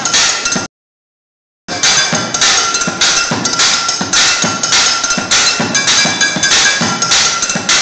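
Makeshift kitchen drum kit of plastic buckets and metal lids played with drumsticks: a fast, steady beat of dull bucket thumps mixed with bright ringing metal clinks. The sound drops out completely for about a second near the start.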